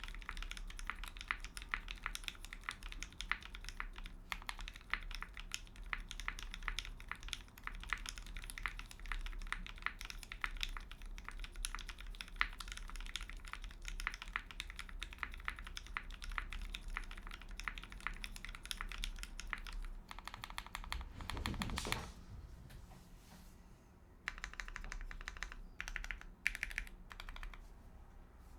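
Fast typing on a mechanical keyboard with lubed linear Gateron Black Ink switches, a brass plate, no dampening and GMK keycaps, in quick runs of clacky keystrokes. About 21 seconds in there is a low thump, after which the typing pauses and then thins to scattered keystrokes.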